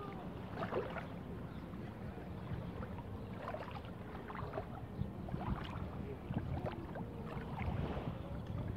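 Legs wading through shallow sea water, with light, irregular splashing and sloshing. A low rumble of wind on the microphone runs underneath.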